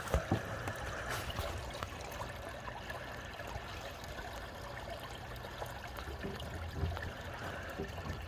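Creek water running steadily, with a few light knocks in the first second.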